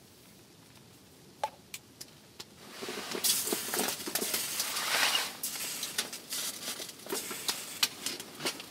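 Crackling, popping and rustling at the open door of a small wood-burning tent stove as a stick is poked into the firebox. It starts suddenly about three seconds in, after a few faint clicks.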